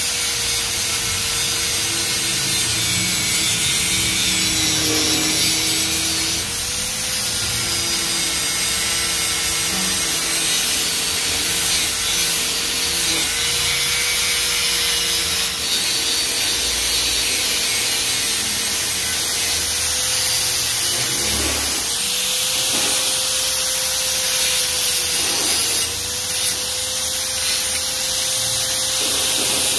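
Angle grinder running with a thin abrasive disc, grinding down a weld on thin stainless steel tube. It makes a steady whine over a gritty hiss, and the pitch dips briefly several times as the disc is pressed into the metal.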